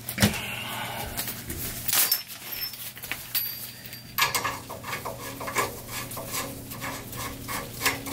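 A garden hose being handled and its coupling screwed onto a water heater's drain valve: scattered rustling and clicks, then from about four seconds in a run of short rubbing sounds, two or three a second, as the fitting is turned.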